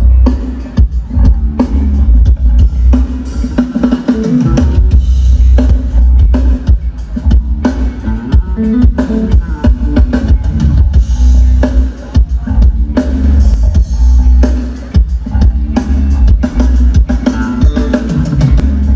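Live band playing loud through a concert PA during a sound check: a drum kit with heavy bass drum keeping a steady beat, under a deep bass line and guitar.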